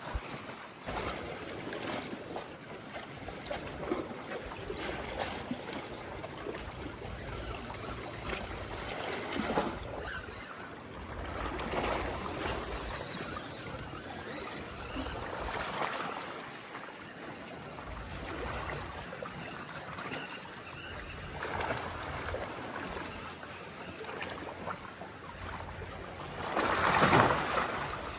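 Seawater washing and sloshing among concrete tetrapod breakwater blocks, swelling with each wave every few seconds, loudest near the end.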